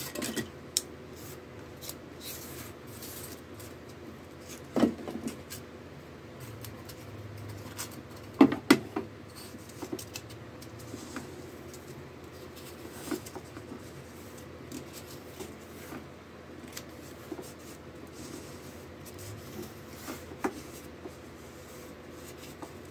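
Pieces of foam insulation board being pushed and slid across the table of a hot-wire foam cutter: soft scraping and rubbing with small clicks, and a few louder knocks, the loudest about eight seconds in, over a faint steady hum.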